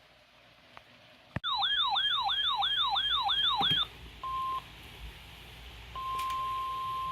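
Weather alert radio going off: a click, then its warbling alarm, a fast run of falling pitch sweeps about three or four a second, for a couple of seconds. Then a short beep and a longer steady single-pitch tone, the weather radio warning tone that comes before an urgent weather message.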